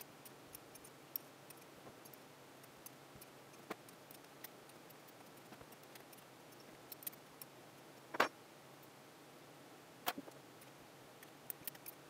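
Scattered faint metallic clicks and clinks of a small combination wrench working the housing bolts of a vacuum pump, and loosened bolts being laid in a metal tray. The loudest clink comes about eight seconds in.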